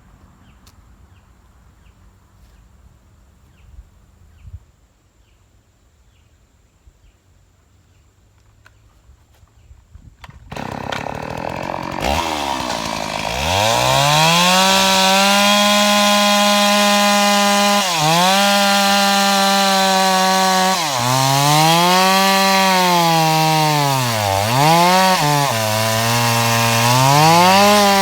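A two-stroke chainsaw starts suddenly about ten seconds in, revs up over a couple of seconds and runs at high revs, its pitch dipping briefly several times.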